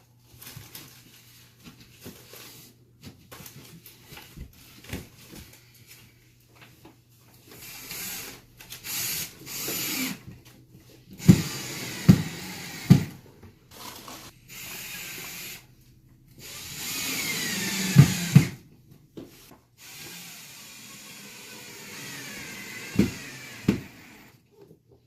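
A handheld power tool, like a drill, running in a series of short runs that start and stop abruptly, some ending in a falling whine as the motor spins down. Several sharp knocks come in between, about a third of the way in, midway and near the end.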